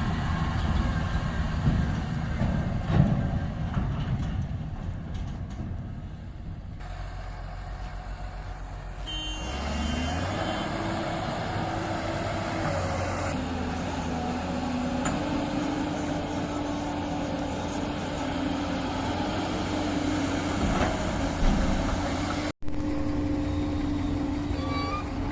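Heavy diesel engine running. About ten seconds in it speeds up, rising in pitch, and then holds a steady higher speed. The sound breaks off for an instant near the end.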